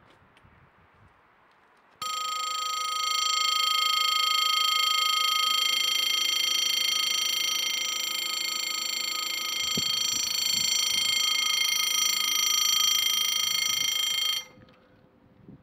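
Level-crossing warning bell ringing as one loud, steady electronic tone while the barriers come down, warning that a train is approaching. It starts abruptly about two seconds in and cuts off shortly before the end.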